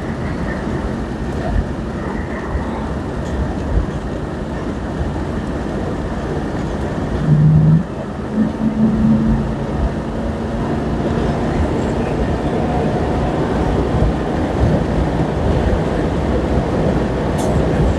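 Steady road, wind and engine noise inside a 1964 Ford Thunderbird convertible with a 390 V8, cruising at about 70 mph.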